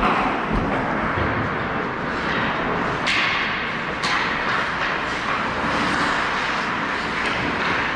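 Ice hockey play on an arena rink: a steady rush of rink noise with two sharp cracks, about three and four seconds in.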